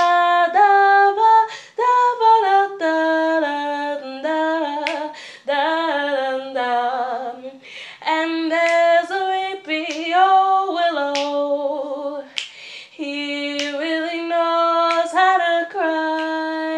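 A woman singing a cappella, scatting wordless jazz lines of held notes and slides, with a few finger snaps.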